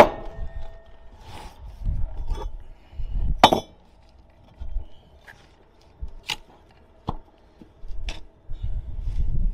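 Bricklaying work: a steel brick trowel knocking and clinking against bricks and mortar, with a sharp knock at the very start, a loud one about three and a half seconds in, and a few lighter taps later, between low rumbling handling noise.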